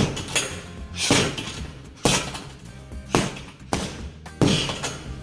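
Background music with a heavy beat about once a second over a steady bass line.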